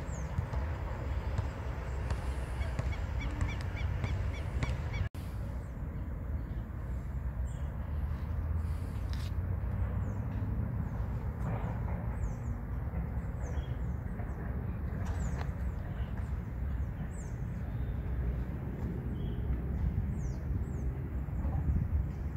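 Outdoor ambience with a steady low rumble on the microphone and small birds giving short, high chirps again and again. The sound cuts out for a moment about five seconds in.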